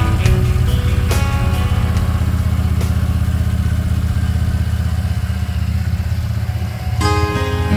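Motorcycle engine running steadily while riding at cruising speed, a low steady engine sound. Guitar music fades out about a second in and comes back near the end.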